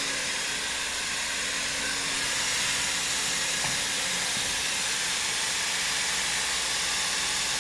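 Hot-air welding machine blowing a steady hiss of hot air, heating vinyl film to heat-weld it, with a low steady hum underneath.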